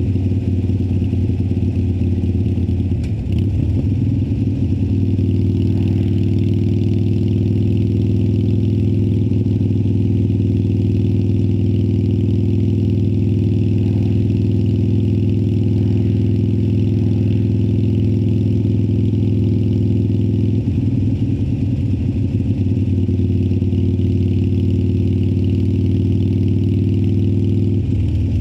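2018 Harley-Davidson Sportster Iron 1200's air-cooled V-twin running through Vance & Hines Twin Slash slip-on mufflers, holding a steady note while riding. The note briefly changes about three seconds in and again about twenty-one seconds in.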